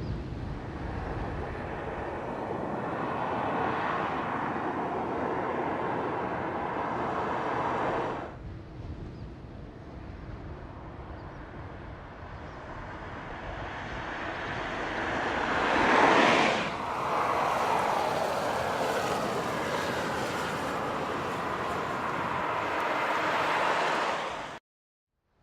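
Skoda Octavia Scout driving, engine and tyre noise in edited segments; it swells to a pass-by about sixteen seconds in, and the sound cuts off abruptly near the end.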